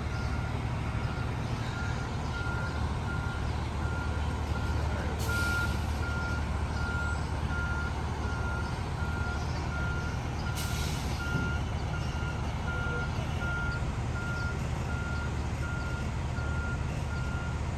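A backup alarm beeps at an even, regular pace over the steady low running of diesel engines as a semi-truck reverses. Two short hisses of air cut in, about five and ten seconds in.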